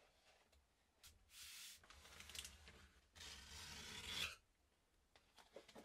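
Faint rubbing of heavy Fabriano Artistico hot-press watercolour paper sliding against itself and the table as a sheet is folded in half by hand. There are two soft swishes, a short one and then a longer one that stops abruptly a little after four seconds in.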